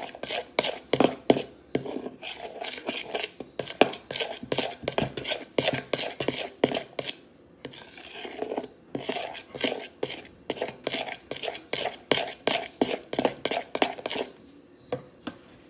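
A utensil stirring a coloured slime mixture in a plastic mixing bowl, clicking and scraping against the sides in quick strokes, about three a second. The strokes break off briefly about halfway and stop shortly before the end.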